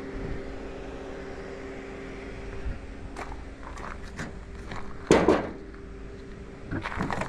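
Light knocks and one louder thump about five seconds in, from a hand on the aluminium checker-plate bed of a kei truck, over a steady mechanical hum.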